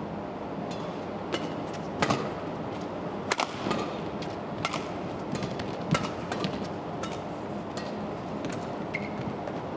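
Badminton rally: sharp smacks of rackets striking the shuttlecock, one about every second, over a steady arena crowd murmur.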